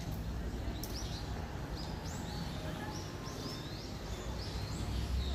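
Small birds chirping: a string of short calls, each rising and falling, about two a second, over a steady low rumble of outdoor background noise.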